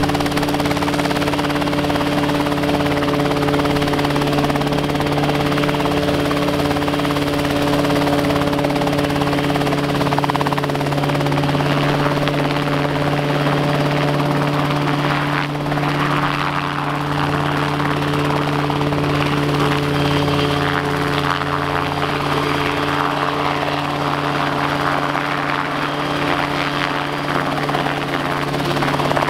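RotorWay kit helicopter hovering low, its main rotor and engine running steadily at a constant pitch.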